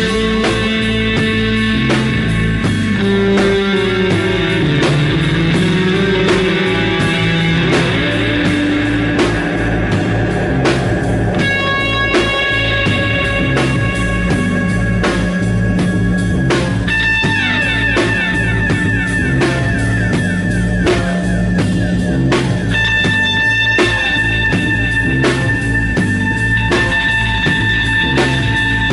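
Live rock band playing an instrumental passage: guitar with long held notes over a moving bass line and a steady drum beat, no singing.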